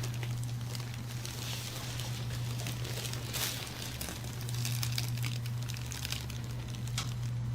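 Soft, irregular rustling and crinkling over a steady low hum.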